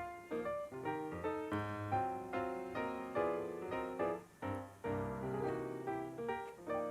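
Background piano music: a steady run of struck notes and chords, each fading after it is played.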